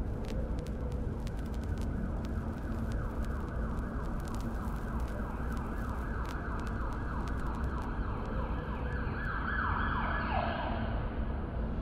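Low rumbling background with the faint, repeated falling wails of a distant siren; one louder falling wail comes near the end. Scattered faint crackles sit over it.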